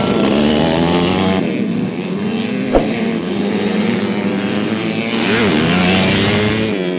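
Dirt-track racing motorcycle engines running hard, their pitch rising and falling as the riders accelerate and back off around the track. A single short sharp click near the middle.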